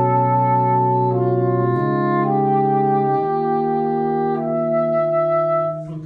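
Saxophone quartet, with a baritone saxophone in the bass, playing slow held chords whose notes shift every second or so. The last chord stops near the end.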